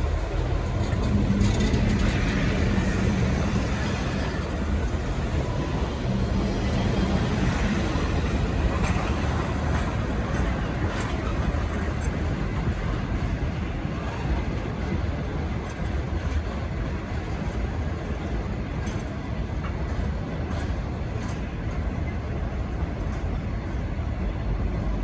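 V/Line N class locomotive-hauled passenger train moving out of the station: a steady low rumble of engine and wheels, with now and then faint clicks.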